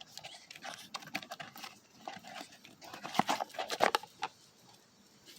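Gift box and packaging being handled and opened: scattered rustles and light taps, the sharpest few about three to four seconds in.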